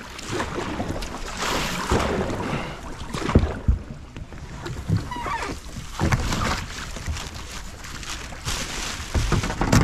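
Kayak landing: paddle splashes in the water and irregular knocks against the hull, with wind on the microphone.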